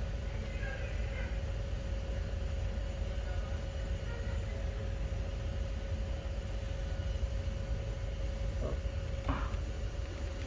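Steady low machinery rumble with a constant mid-pitched hum. Two faint knocks come near the end.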